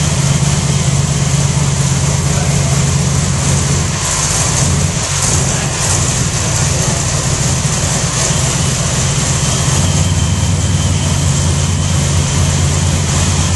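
Monster buggy's engine idling steadily, its low note dropping partway through.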